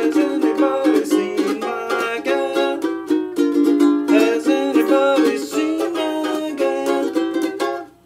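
Plastic Maccaferri Islander ukulele being strummed in a quick run of chords, freshly restrung and tuned. The playing stops just before the end.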